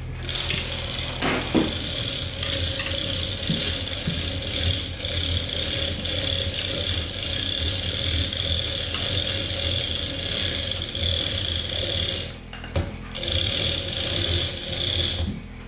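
Manual chain hoist being hauled to lift the front of a snowmobile: the hand chain runs through the hoist with a continuous rattle and ratchet clicking, pausing briefly about twelve seconds in, then starting again.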